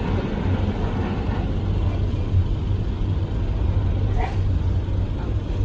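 Steady low rumble of a jet airliner's engines as it moves along the runway, with faint voices near the end.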